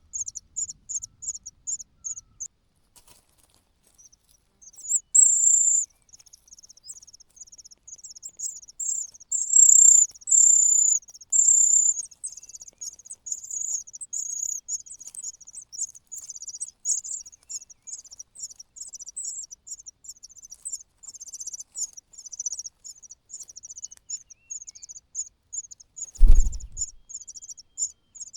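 Cuckoo chick giving rapid, high-pitched begging calls in long unbroken trains: hungry begging for food. The calls stop for about two seconds early on, then come back louder for several seconds. A single dull thump sounds near the end.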